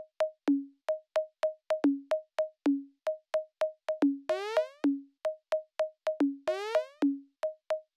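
Electronic background music: a sparse, even beat of short pitched percussion hits alternating high and low, with two rising synth sweeps in the second half.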